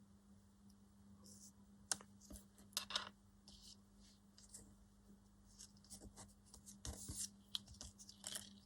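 Quiet handling of paper and fabric: faint rustles and a few light clicks and taps, the sharpest about two seconds in, with more frequent small rustles near the end.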